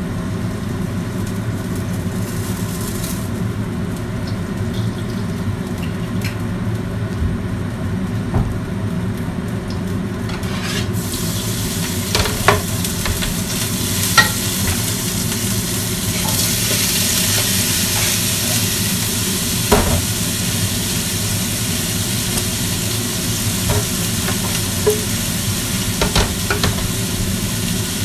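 Sizzling in a wok on a gas burner, with a spatula stirring and a few sharp taps of the spatula against the pan, over a steady low hum. The sizzle grows louder after about eleven seconds.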